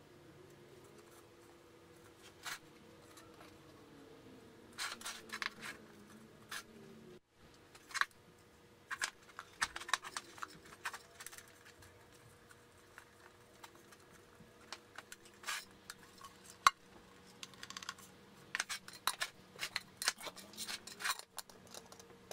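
Scattered light clicks, taps and clinks from hands working on an empty metal paint can, fitting a wooden block inside and setting the tin lid on. They come in short clusters, with one sharper click about three-quarters of the way through.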